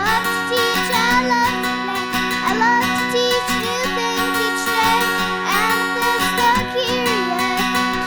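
Music: a song with acoustic guitar and a child singing.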